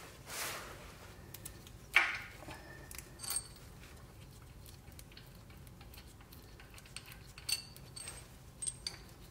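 Metal clinks and taps as loosened bolts and the steel engine mount bracket are handled and worked free by hand, with one sharp clink about two seconds in as the loudest, and a brief rustle at the start.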